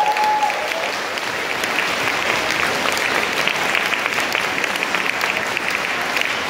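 A hall full of people applauding, a dense steady clapping of many hands.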